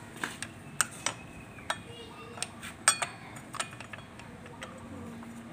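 Irregular sharp metallic clicks and clinks of brake pads, pad pin and tools being handled at a motorcycle's rear brake caliper, about a dozen strokes, the loudest about three seconds in.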